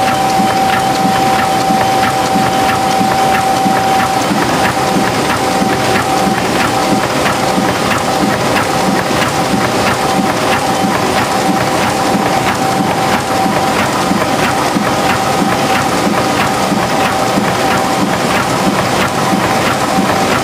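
Tymi Ustar-102 UV spot coating machine running: a steady, dense mechanical clatter with a steady whine running through it.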